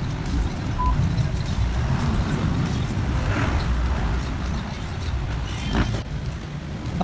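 Steady low rumble of motor-vehicle noise, with a short beep just under a second in.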